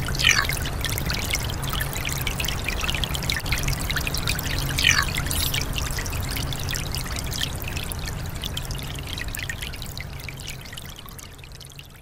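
Shallow brook babbling over rocks in a steady rush of water, with two brief louder gurgles, about a second in and again near the middle, fading out near the end.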